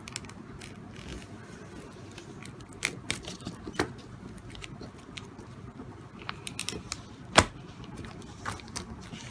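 Small scissors snipping into a book's plastic shrink-wrap, then the thin plastic crackling and crinkling as it is peeled off by hand, in scattered small clicks. One sharp snap about seven seconds in is the loudest sound.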